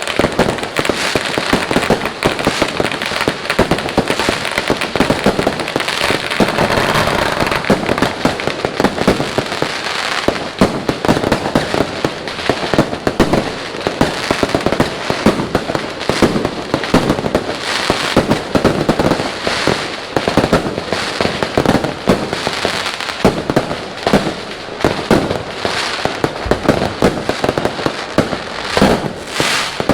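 Fireworks and firecrackers going off without a break: a dense run of bangs, pops and crackling, many overlapping.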